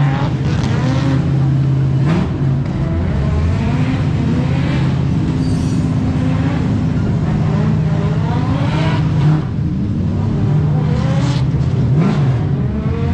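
Drift car engine idling loudly, with a couple of short revs, over people talking.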